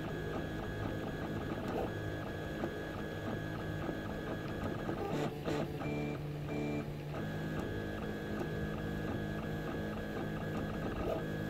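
Prusa-clone 3D printer printing a small PLA test cube. Its stepper motors sing in steady tones that change pitch every few seconds as the print head changes moves, with a different run of tones for a couple of seconds in the middle.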